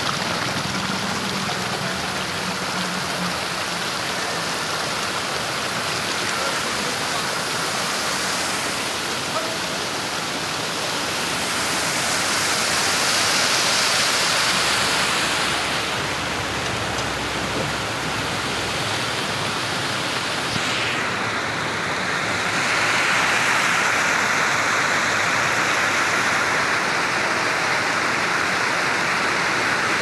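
Small waterfall and stream rushing and splashing over rocks: a steady rush of water that grows louder for a few seconds midway and again from about two-thirds of the way through.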